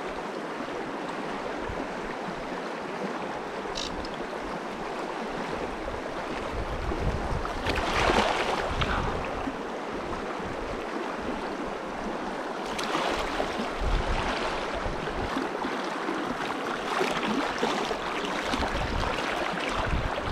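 Shallow mountain stream running over a riffle: a steady rush of water that swells louder briefly about 8 seconds in and again around 13 seconds.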